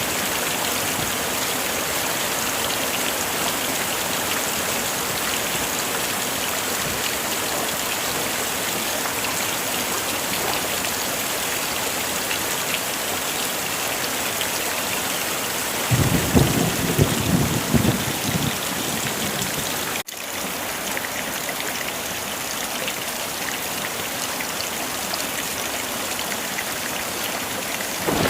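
Heavy rain falling steadily as an even hiss, with a roll of thunder about sixteen seconds in that lasts a couple of seconds. About twenty seconds in the sound cuts out for an instant and the rain comes back slightly quieter.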